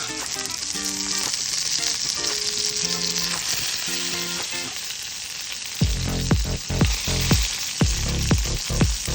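Food frying in a pan with a steady sizzling hiss, under background music; a heavy, regular beat comes in about six seconds in.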